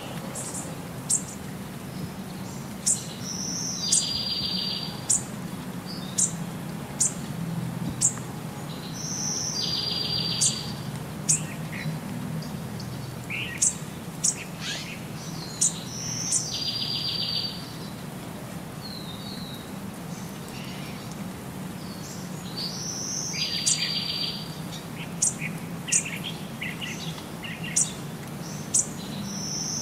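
Birds singing and chirping: the same phrase repeats about every six and a half seconds, a short rising note followed by a buzzy trill about a second long, with scattered short high chirps between. A low steady rumble runs underneath.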